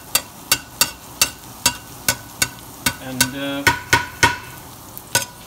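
Metal spatula knocking and scraping against a cast iron skillet, a sharp clack with a short ring roughly three times a second, pausing near the end, as minced garlic is stirred in hot olive oil. Faint sizzling of the oil runs underneath.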